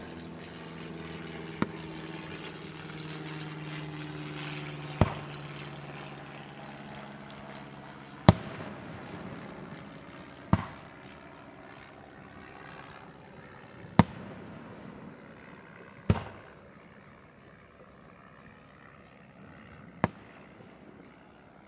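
Aerial fireworks shells bursting, seven sharp bangs spaced a few seconds apart, the loudest about eight seconds in. A steady low hum runs underneath and stops about eight seconds in.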